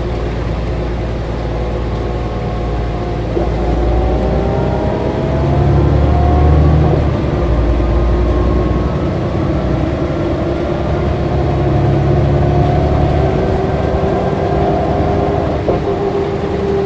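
Mercedes-Benz O405 GN2 articulated bus's diesel engine and ZF automatic transmission heard from inside the passenger compartment while driving. The engine and drivetrain whine rises in pitch for a few seconds as the bus accelerates, drops back about seven seconds in at a gear change, then runs steadily over a constant low rumble.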